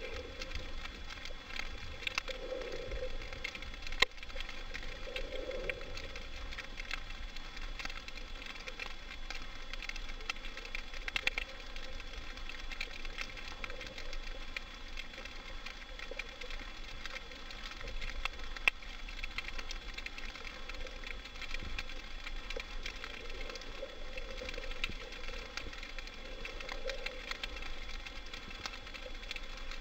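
Underwater ambience heard through a camera housing: a steady faint crackling, with a few sharp clicks and some soft low whooshes of water movement.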